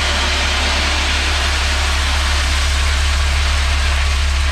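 A heavy vehicle engine running steadily: a constant low drone with an even hiss over it.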